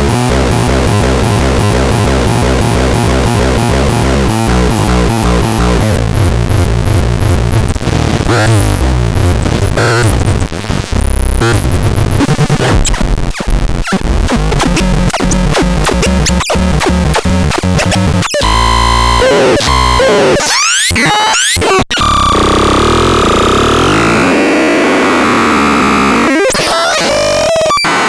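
Synthesizer playing harsh, noisy, distorted electronic tones, with fast repeated pulses and pitch sweeps up and down. The sound changes character several times.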